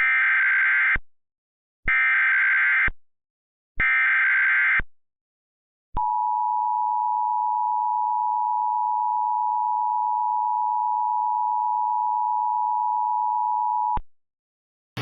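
Emergency Alert System tones, recreated: three one-second bursts of SAME header data, a harsh digital screech, about two seconds apart. After a short gap comes the steady two-tone EAS attention signal, which holds for about eight seconds and cuts off sharply.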